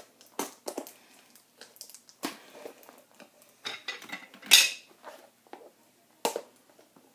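Packaging of a 2013 Series 1 baseball card blaster box being handled and opened by hand: irregular crinkles, rustles and clicks, the loudest about four and a half seconds in.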